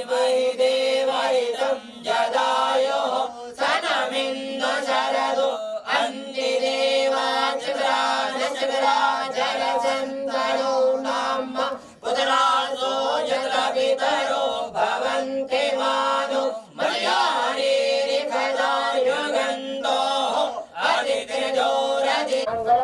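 Several voices chanting Hindu puja mantras together in a continuous recitation, with a steady held tone underneath.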